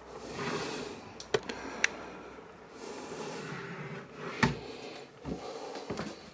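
Wooden sideboard cupboard doors being handled: a few sharp clicks, then a louder knock about four and a half seconds in and two or three lighter knocks after it.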